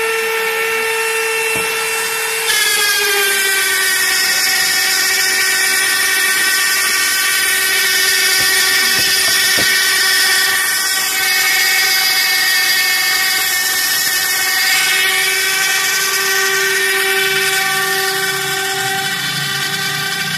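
Electric power tool cutting the metal of an embroidery machine frame, running with a steady high whine. About two and a half seconds in, the pitch sags slightly and the sound gets louder as the tool comes under load in the cut.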